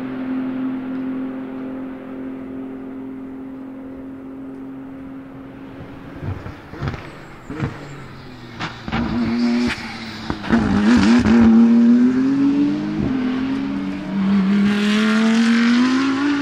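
BMW M4 GT3's twin-turbo 3.0-litre P58 straight-six at steady high revs, fading as the car pulls away. Then a run of sharp cracks from the exhaust as the car slows for a corner, and the engine pulling hard out of it, its pitch rising, dropping at an upshift, then rising again.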